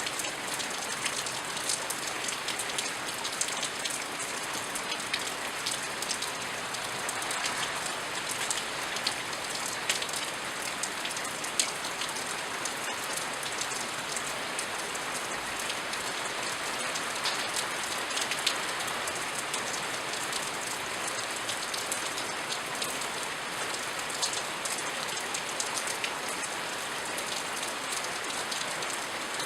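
Steady rain falling and pattering on surfaces, with many individual drops ticking sharply.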